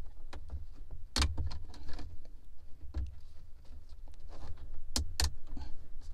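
Plastic pry tool and dashboard air-vent housing ticking, scraping and clicking as the vent's retaining clip is worked loose by hand, with a few sharp plastic clicks, the loudest about a second in and two close together near the end.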